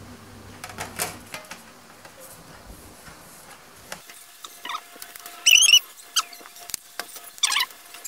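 Aluminium bottom cover of a 2011 MacBook Pro being pressed and slid into place by hand: scraping and light knocks, then two short high squeaks, one about halfway through and one near the end.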